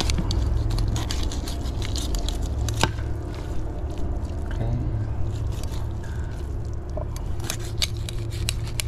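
Kitchen knife slicing a fillet off a barracuda, the blade scraping and clicking against the rib and belly bones in quick runs of sharp ticks, one loud click about three seconds in and another run near the end. A steady low rumble lies underneath.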